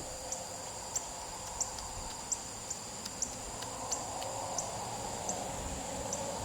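Outdoor insect chorus of crickets and similar insects: a steady high-pitched drone of several pitches, with short chirps repeating about every two-thirds of a second.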